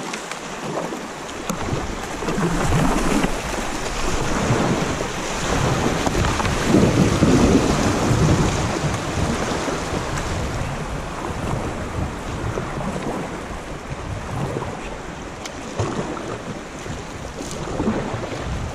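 Fast, shallow river water rushing and splashing around a kayak running a small rapid, with wind buffeting the action-camera microphone. Loudest about seven seconds in, with a few sharp knocks.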